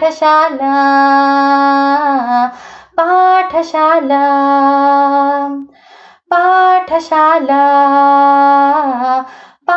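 A girl singing solo in Kannada, holding three long sustained notes with short breaks for breath between them.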